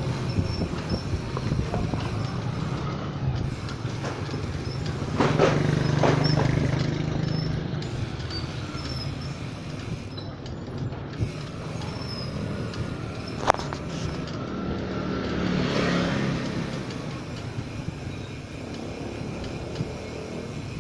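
Riding noise from a mountain bike picked up at the handlebars: wind on the microphone, knobby tyres rolling on rough concrete and the bike rattling over cracks. It grows louder about a quarter of the way in and again after the middle, with one sharp click in between.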